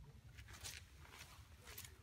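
Near silence: faint outdoor ambience with a low rumble and a few soft, brief rustling clicks.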